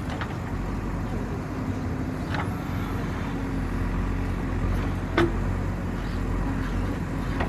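Diesel engine of a JCB 3DX backhoe loader running steadily with a low hum, with three short sharp knocks.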